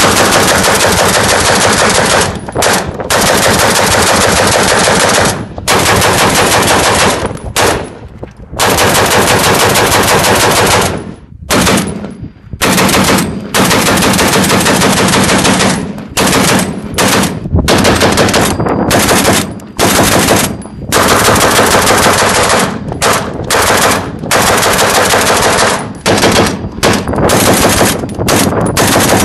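Semi-automatic Polish DPM light machine gun, a modernized DP-28 in 7.62×54R, being bump fired off its bipod: repeated rapid-fire bursts of about one to four seconds each, with short breaks between them.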